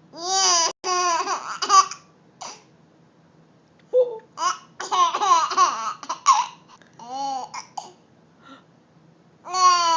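Baby giggling in four bursts of laughter with quiet gaps between them: a run in the first two seconds, a longer one from about four to six seconds, a short one around seven seconds and another starting just before the end.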